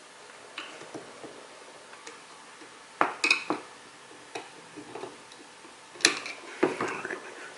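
Scattered light metallic clicks and clinks of a screwdriver working a snap ring onto a manual-gearbox shifter rod, with louder clusters about three seconds in and again about six seconds in.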